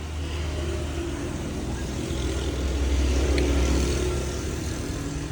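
A motor vehicle's engine running close by, a low hum that grows louder to a peak about three to four seconds in and then eases off.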